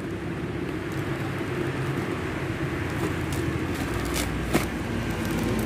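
Brown paper wrapping rustling and crinkling as hands pull it apart, with a couple of sharp crackles a little after four seconds in. Under it runs a steady low mechanical rumble.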